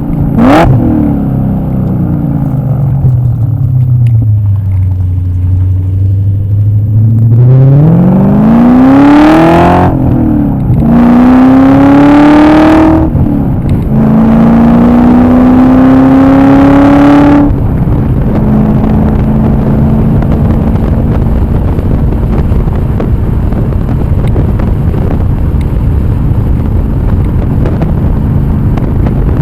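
BMW E39 M5's 4.9-litre V8 winding down. Then about seven seconds in it pulls hard under full throttle through three gears, with quick upshifts about ten and thirteen and a half seconds in. It then eases off to a steady cruise over a constant rush of road and wind noise.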